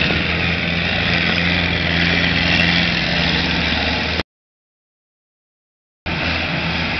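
Engines of old combine harvesters running steadily with an even low hum. The sound cuts out completely for about two seconds, a little after four seconds in, then comes back unchanged.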